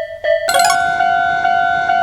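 Japanese railway level-crossing warning bell ringing its repeated ding about twice a second. About half a second in, a brief chime leads into a different, slightly higher-pitched crossing bell that keeps the same steady beat.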